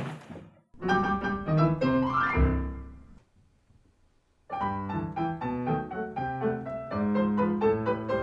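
A sharp click at the start, then piano on a Yamaha stage keyboard: a short phrase with a rising run that stops about three seconds in. After a pause of about a second and a half, the piano starts playing again, the introduction to a song.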